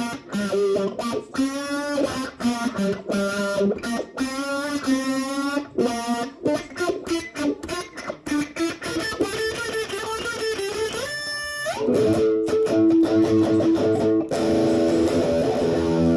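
Electric guitar playing a fast run of picked notes, then a rising slide about eleven seconds in and sustained ringing chords.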